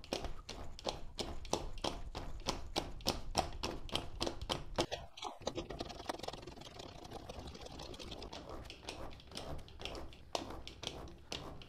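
Handwheel of a 676 milling machine being cranked to wind the carriage along its lead screw, clicking steadily at about four clicks a second. The clicking grows faint partway through and comes back stronger near the end.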